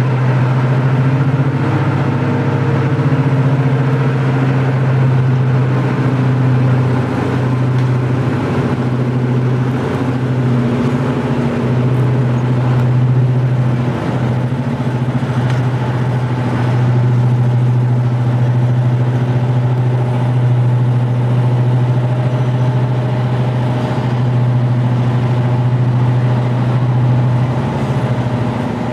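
Class 55 Deltic locomotive's twin Napier Deltic two-stroke diesel engines running steadily with a deep, even hum and no change in revs.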